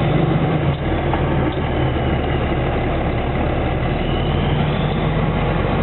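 Military vehicle's engine running with a steady low drone and road noise, heard from inside the cab while driving.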